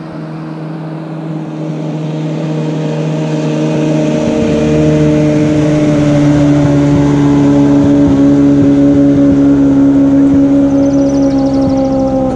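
Outboard motor of a small flat-bottom river boat running at speed as the boat passes: a steady engine note that grows louder over the first few seconds as the boat comes close, then holds.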